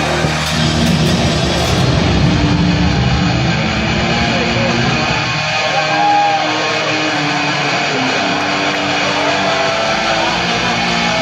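Loud rock music with electric guitar, played over an arena's sound system.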